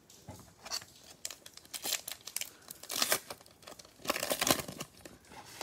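Wrapper of a Prizm baseball card pack crinkling in irregular bursts as gloved hands handle it and tear it open, the loudest stretch about four seconds in.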